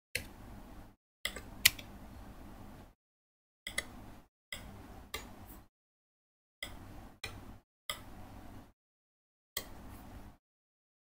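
Laptop keys clicking as a spreadsheet formula is typed in: about nine sharp, scattered clicks, the loudest about two seconds in. A faint hum sits under them and drops out to dead silence between groups of clicks.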